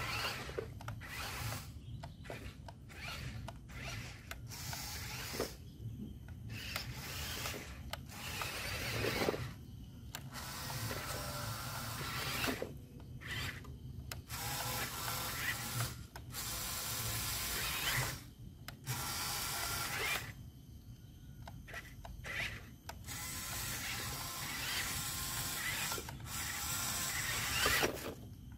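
Radio-controlled toy trucks' small electric drive motors and gearing whirring in stop-start bursts, from under a second to a few seconds each, as the trucks are driven back and forth in mud.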